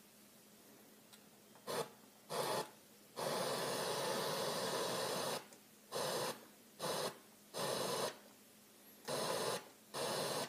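Stereo FM tuner being stepped through the band: bursts of radio static cut in and out abruptly as it changes frequency, about eight bursts, the longest about two seconds, with quiet gaps between.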